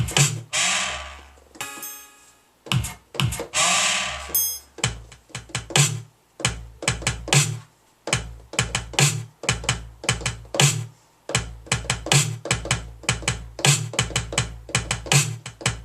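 Electronic beat played on a Native Instruments Maschine Mikro pad controller: drum-machine samples with deep bass booms and short sharp hits. It opens with two long noisy swells, then settles into a steady, dense rhythm.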